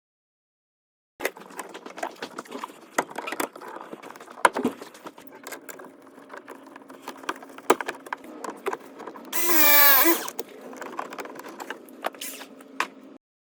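Clicks and knocks of tools and fittings being handled during plumbing work, over a steady low hum, with a short rising whine about nine and a half seconds in.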